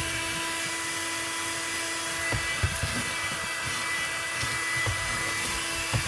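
Bullsone Extreme Power car vacuum cleaner running steadily with a whining motor while it sucks sand off the car's floor. A few low knocks come from the nozzle against the floor.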